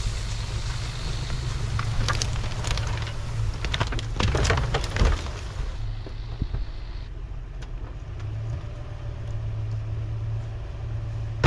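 Toyota Tundra pickup's engine running with a steady low hum. Over the first few seconds, snow and dead brush crackle and snap under the tyres as the truck drives past. After that only the steady engine note remains.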